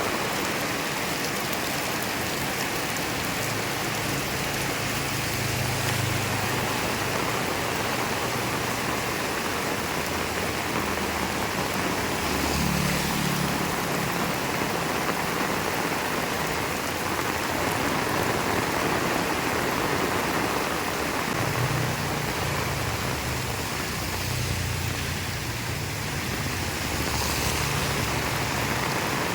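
Heavy rain falling steadily as a dense, even hiss, with low rumbles coming and going beneath it.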